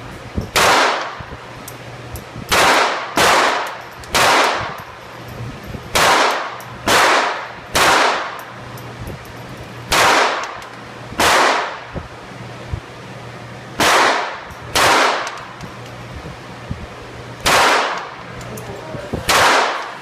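Gunshots, about thirteen at uneven intervals, some in quick pairs about a second apart, each with a short ringing decay.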